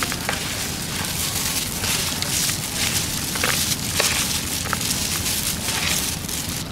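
A hand in a plastic glove tossing a dressed banana flower salad in a plastic bowl: wet rustling of the vegetables and glove with many small, irregular crackles and clicks.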